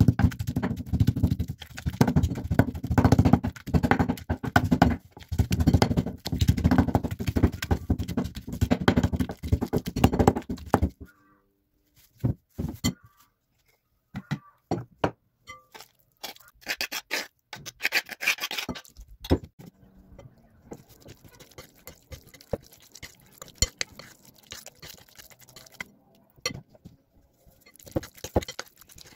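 A wooden pestle pounding and mashing eggplant in a clay mortar, a rapid run of dull knocks for about the first eleven seconds. Then, after a short pause, scattered clinks and scrapes of a metal spoon against a glass bowl as the mixture is stirred.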